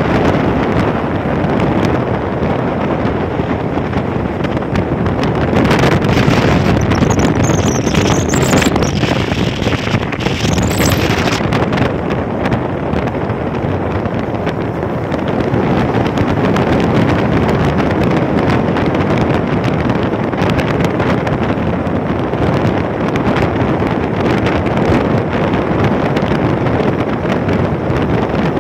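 Strong wind rushing over the microphone of a phone carried on a moving motorcycle, over the steady road and engine noise of the ride.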